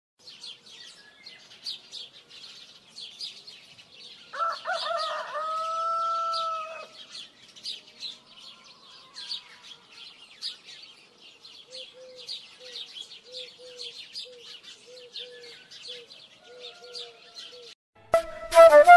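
Rooster crowing once, a long call that rises and then holds, over the steady chirping of many small birds at daybreak in a village. Later comes a run of short low calls, about two a second, and near the end the sound cuts suddenly to much louder music.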